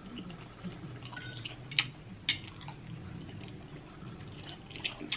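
Close-up wet mouth sounds of someone chewing a mouthful of creamy shrimp Alfredo pasta, with two sharp smacks a little under two seconds and about two and a half seconds in.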